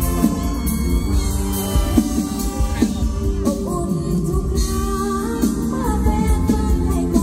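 Live mor lam band music over a loud PA system, with singing over a steady bass-heavy beat.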